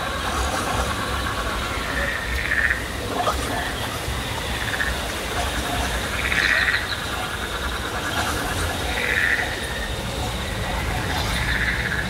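Frog-like croaking calls repeating every two to three seconds over a steady high insect-like trill, with a low murmur of crowd and background noise beneath.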